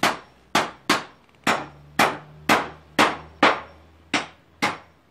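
A series of sharp knocks, about two a second, each with a short ringing tail.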